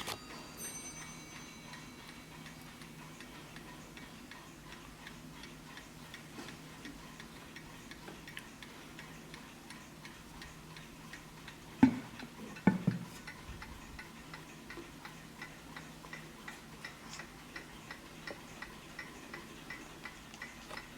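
Vintage Hermle skeleton mantel clock ticking steadily. Its chime bell is struck right at the start and rings out over the first couple of seconds. Two louder knocks come about twelve seconds in.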